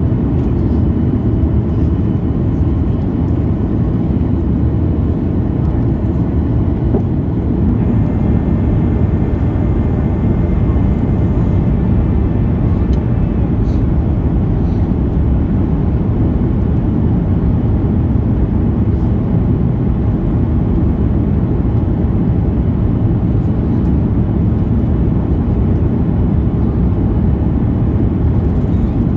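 Steady cabin noise inside a descending Boeing 737 MAX 8 airliner: the low rumble of its CFM LEAP-1B turbofan engines and the rush of air over the fuselage.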